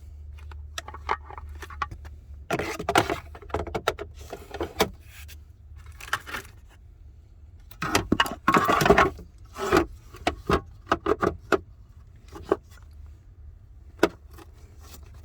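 Hard plastic clicking, knocking and rattling as the cabin air filter cover and glove box trim pieces are handled and snapped back into place, with the busiest rattling around three seconds and nine seconds in. A steady low hum runs underneath.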